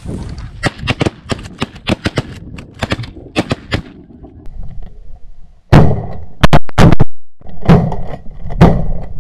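A volley of shotgun fire from several hunters shooting at snow geese. Many quick shots overlap over the first four seconds. After a short pause, a second run of louder shots follows near the end.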